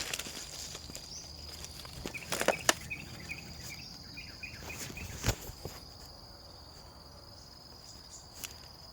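Outdoor insect noise: a steady, thin, high-pitched trill, with a run of short chirps for a few seconds in the middle. A few sharp clicks or snaps come through, the loudest about two and a half seconds and five seconds in.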